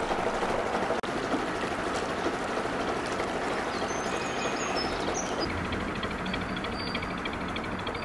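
Steady running noise of a narrowboat's engine under way, with a few faint high chirps about halfway through.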